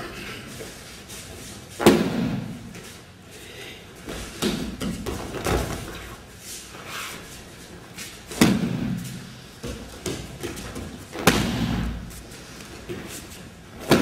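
Aikido breakfalls: bodies slapping and thudding onto tatami mats as the attacker is thrown, several times, the loudest about 2 s, 8.5 s and 11 s in, echoing in a large hall.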